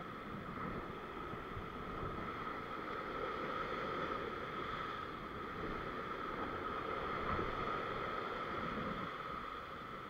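Ocean surf surging and washing over a rock ledge: a steady rush of water.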